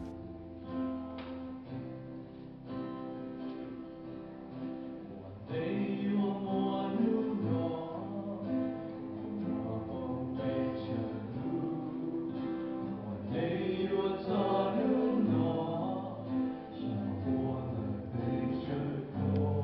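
A small group of voices singing with acoustic guitar accompaniment; the guitar plays alone at first and the voices come in about five seconds in.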